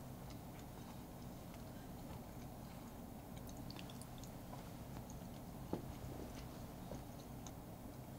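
Faint chewing of a bite of moist chocolate financier cake, with small soft clicks and one sharper click about six seconds in, over a low steady hum.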